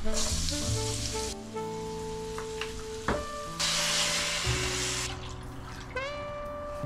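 Background music, with liquid being poured into a saucepan of chicken and vegetables twice, each a second or so of splashing that starts and stops abruptly. A single click comes about three seconds in.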